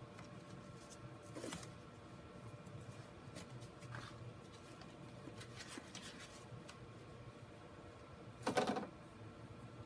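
Faint handling noises: light rustles and clicks of gloved hands, over a faint steady hum, with one louder brief rustle about eight and a half seconds in.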